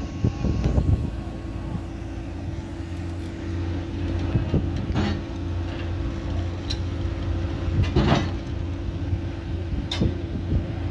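A large engine idling steadily with a constant low hum, with a few short knocks spread through it.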